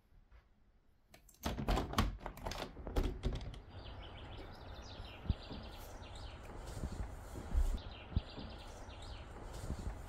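Clattering and sharp clicks for about two seconds, then steady outdoor background noise through an open window, with birds chirping now and then.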